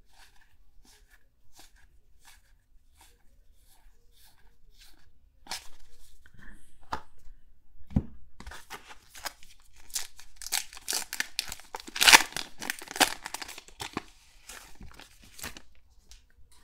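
A few light clicks of trading cards being handled, then a trading-card pack wrapper crinkled and torn open, with a busy run of crackling and tearing that peaks about twelve seconds in.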